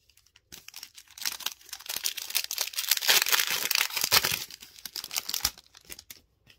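Panini Fortnite Series 3 trading card pack wrapper being torn open and crinkled by hand: a crackling rustle that builds, is loudest in the middle, and fades near the end.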